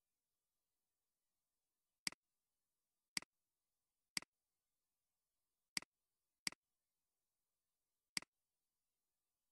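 Computer mouse clicking six times, single sharp clicks at uneven gaps of roughly one second.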